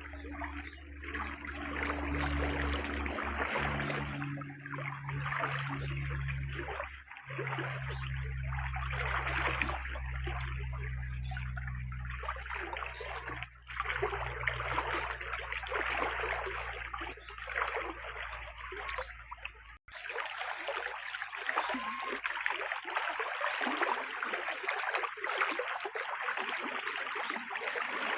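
Running water trickling and splashing without letup, with a low steady hum beneath it that stops abruptly about twenty seconds in.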